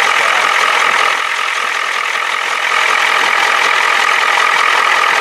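Ford 7.3 IDI V8 diesel engine idling steadily, heard up close in the engine bay beside its spinning belt-driven cooling fan and alternator.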